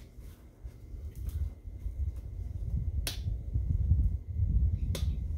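Two sharp snap-clicks about two seconds apart, the first about three seconds in, as parts of a Wonderfold W4 Elite stroller wagon's frame snap into place. Under them is a steady low rumble of wind on the microphone.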